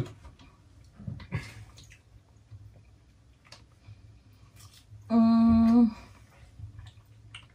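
A single steady closed-mouth "mmm" hum lasting just under a second from someone eating. Faint rustles and light clicks come about a second in.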